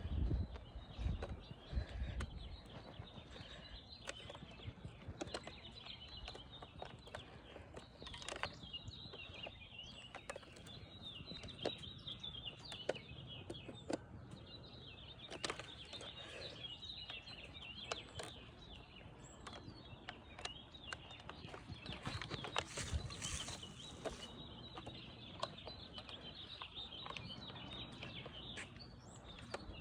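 Birds chirping in the background, with scattered faint clicks and rustles.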